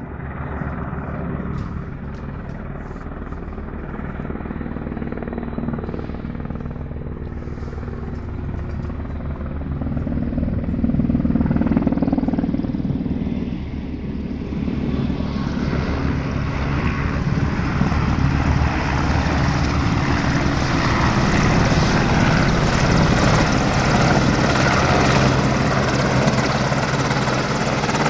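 AgustaWestland AW101 helicopter's main rotor and three turbine engines running in flight, growing louder and fuller from about halfway through as it comes in low and close.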